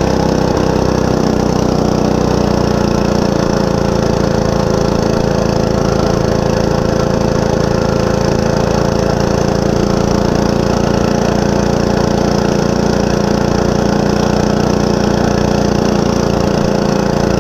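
Monster Moto 105 mini bike's small single-cylinder four-stroke engine running at a steady speed under the rider, its pitch holding level.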